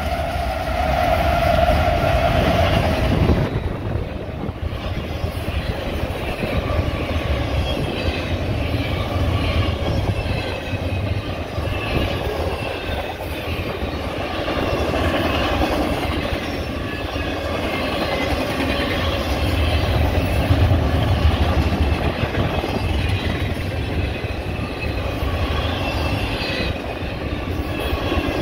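Union Pacific freight train passing close by. The last of its diesel locomotives go by in the first few seconds, then double-stack container well cars roll past with a steady deep rumble of wheels on rail and faint high squeals from the wheels.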